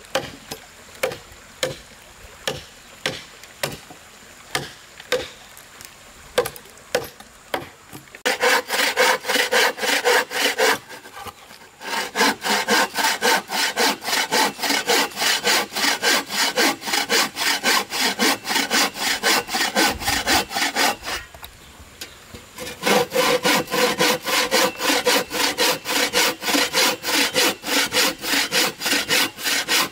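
A machete chopping into an old wooden plank, about two blows a second. About 8 s in, a bow saw starts cutting through the plank in quick back-and-forth strokes, pausing briefly twice.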